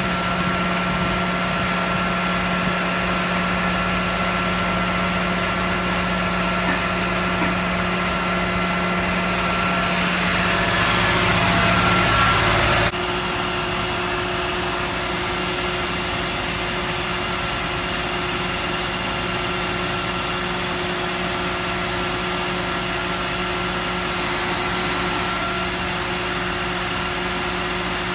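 Steady machinery drone with a constant low hum and a thin fixed whine. A rushing noise grows louder and then stops suddenly about halfway through, leaving the steady hum.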